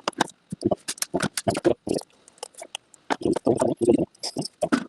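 Irregular clicking and clattering of small plastic parts and tools being handled while a toy RC car is taken apart.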